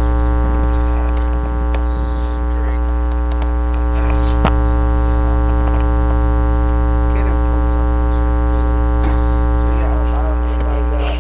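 Loud, steady electrical mains hum with a buzzy stack of overtones, and faint speech underneath. A single sharp click comes about four and a half seconds in.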